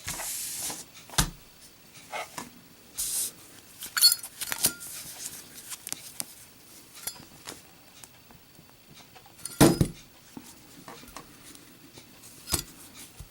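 Zippo lighter, chrome case with a steel insert, being put through a drop test: irregular sharp metallic clicks and clinks with a few short scraping hisses, the loudest clack about ten seconds in.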